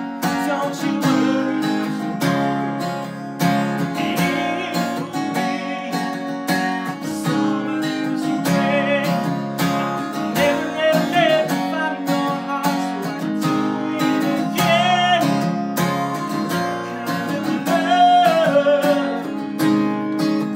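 A man singing a slow song over a strummed acoustic guitar, his held notes wavering with vibrato.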